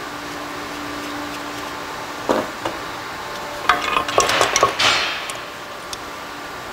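Metal parts clinking and knocking against a Borg Warner 1356 transfer case housing as the shift fork is worked out of it: one knock about two seconds in, then a quick run of clinks and scrapes with short metallic ringing around four to five seconds in.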